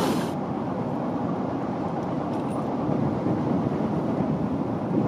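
Steady low rumble of distant city traffic heard from high above the streets, with a few faint clicks.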